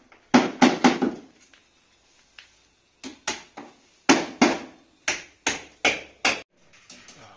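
Hammer blows in quick runs of three or four strikes, about three a second, with short pauses between the runs, as a wooden batten is fixed to a wall.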